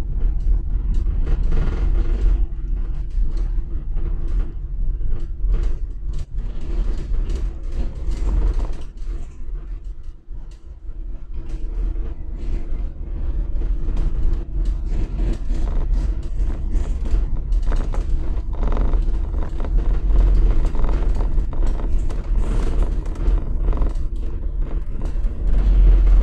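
Cabin noise inside an electric minibus driving over cobblestones: a steady low tyre rumble, with frequent rattles and creaks from the bodywork. It goes quieter for a moment about ten seconds in.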